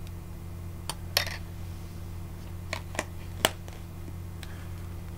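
Several sharp clicks and light taps, with the loudest about a second in and again about three and a half seconds in: a spoon and a drink-mix canister handled on a tabletop while matcha latte powder is measured out.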